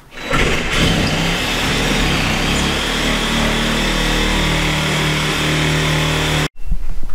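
DeWalt cordless reciprocating saw running steadily as its blade cuts through ceiling drywall, then cutting off suddenly near the end.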